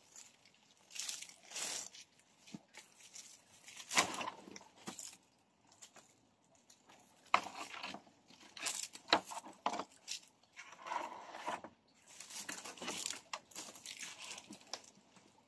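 Rustling and crackling of dry split bamboo firewood and a tie strip being handled and pulled tight as the wood is bundled, with a few sharp knocks of wood on wood.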